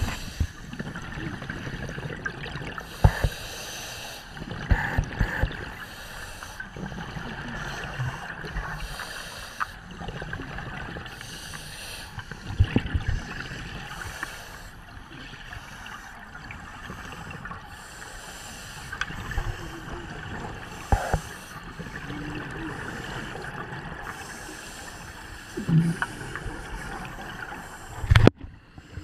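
Muffled underwater sound heard through a camera housing: a diver's exhaled bubbles rush past every few seconds, with scattered knocks against the housing and one heavy thump near the end.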